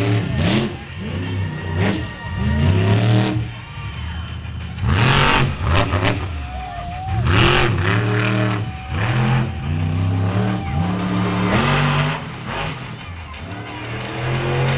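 Grinder monster truck's engine revving hard, its pitch climbing and dropping in repeated surges as the truck is driven around the arena.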